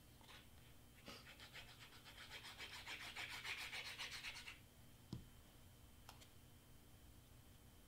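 Faint, quick, even rubbing strokes on cardstock for about three and a half seconds as a cut paper piece is pressed and smoothed down, then a single small click.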